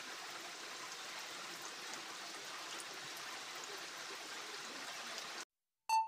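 Steady rain falling, an even hiss with a few faint scattered drop ticks; it cuts off sharply about five seconds in.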